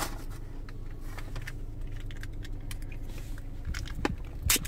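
Paper bag rustling and crinkling with small clicks and taps as hands dig through it for a plastic dipping-sauce cup, with a louder crackle near the end as the cup is handled.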